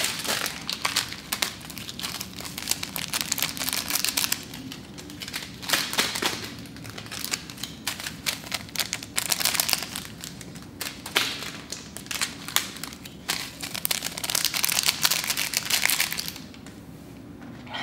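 Small plastic topping packets crinkling as they are opened and shaken out over a platter of noodles: an almost unbroken crackling rustle that stops about a second before the end.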